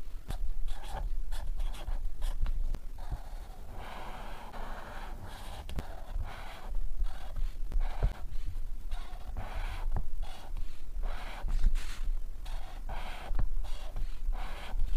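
Black marker pen drawing on paper: an irregular run of short strokes of the tip across the sheet, with brief pauses between lines.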